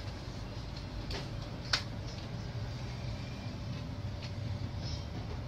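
Steady low background rumble with a faint hum, a few faint clicks, and one sharper click a little under two seconds in.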